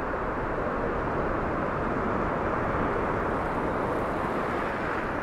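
Ocean surf breaking and washing up the sand in the shallows: a steady rushing noise that swells a little midway.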